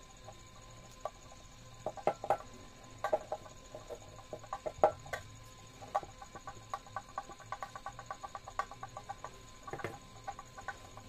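A screwdriver driving the screw that fixes a wooden handle to a saucepan's metal bracket: scattered clicks and knocks, then a quick, even run of clicks, about seven a second, from about six to nine seconds in.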